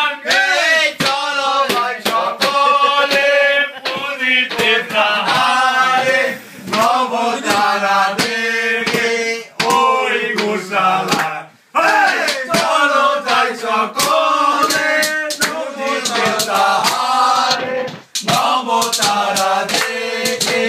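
Men singing a Bengali kirtan-style chant, punctuated by frequent sharp percussive hits.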